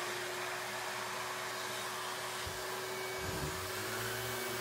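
DeWalt random orbital sander running steadily as it sands a wooden board flat, with a dust-extraction vacuum drawing through a hose on the sander.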